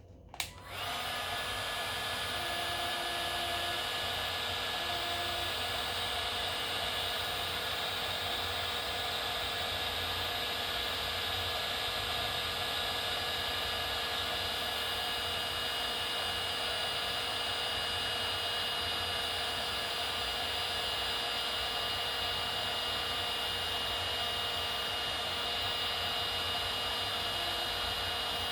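Battery-powered heat gun switched on just under a second in and running steadily, its fan making an even blowing noise with a thin high whine, while it shrinks heat-shrink tubing over a coax connector.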